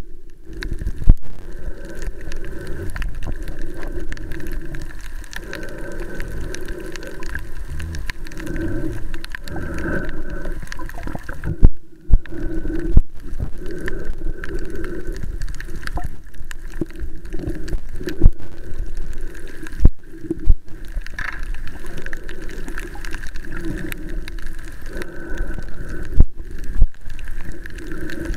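Underwater sound picked up by the camera at the reef: a steady, wavering wash of water with a few sharp knocks scattered through it.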